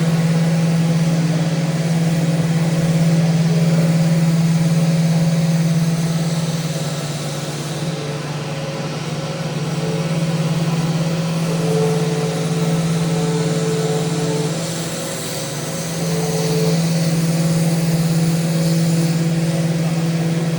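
Electric power sander running against wood, a steady motor hum with a sanding hiss over it. Its loudness swells and dips as it is worked along the rail.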